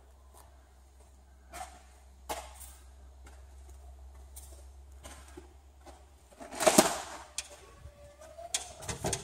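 Scattered knocks and handling noises, then a louder clatter about two-thirds through and a cluster of clicks with a short rising squeak near the end, as the dome's glass door is opened to the outside.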